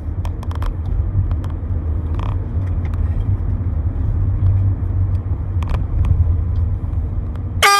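A steady low rumble with a few scattered clicks, then right at the end an air horn blasts loudly at one steady pitch.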